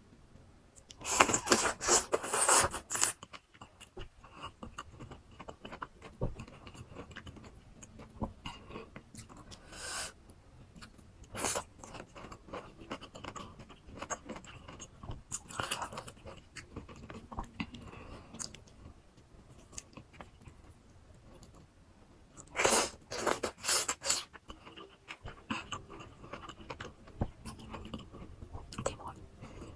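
Close-miked eating of crisp raw fruit: two loud crunching bites, one about a second in and another about three-quarters of the way through, each lasting about two seconds, with quieter chewing in between.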